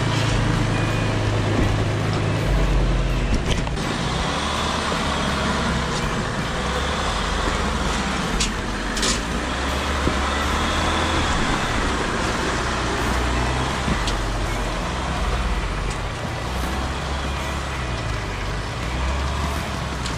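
Jeep Wrangler's diesel engine running at low revs as it crawls over wet rock and loose stones, with the tyres grinding on the rock and a few sharp knocks of stone.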